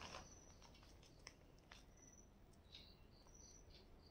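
Near silence: room tone with a few faint ticks and some faint, short high chirps.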